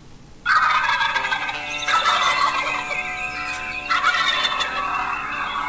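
Wild turkey gobbling: three loud, rattling gobbles that fall in pitch, starting about half a second in, near two seconds and at four seconds.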